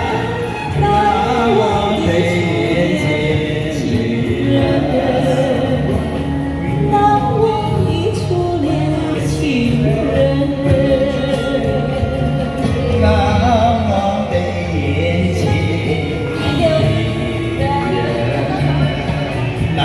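A voice singing a song over a karaoke-style backing track with a steady bass line.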